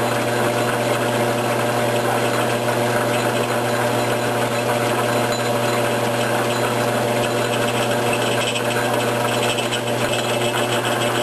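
Logan 922 metal lathe running with the half nut engaged, a steady hum and whine, as a single-point tool takes a light threading pass.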